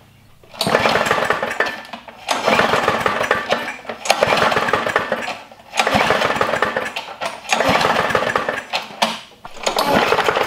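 Briggs & Stratton lawn mower engine spun over with its pull-start rope about six times in a row, each pull a fast clatter lasting about a second and a half. It is being cranked with a compression gauge in the spark-plug hole. The engine was seized from running without oil and has since freed up, but it has a bad knock and low compression.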